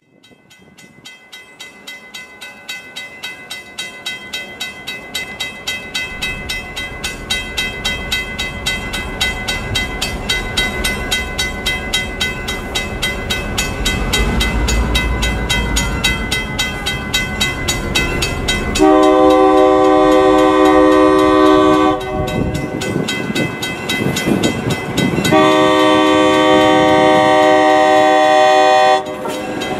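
Grade-crossing bell ringing steadily at about two to three strikes a second, growing louder as an EMD GP9 diesel locomotive's engine rumbles closer. About two-thirds of the way in the locomotive sounds its chord horn in two long blasts, the start of its crossing signal.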